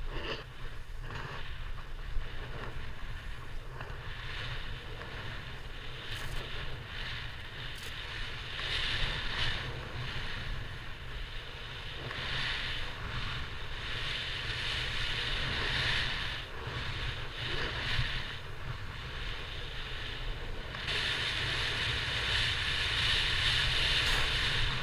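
A snowboard hissing and scraping as it slides and carves over wind-packed snow, louder in stretches, with wind rumbling on the board-mounted camera's microphone.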